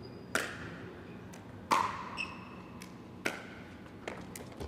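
Pickleball rally: paddles striking a hard plastic Franklin X-26 ball three times about a second and a half apart, each a sharp pop, with fainter taps between.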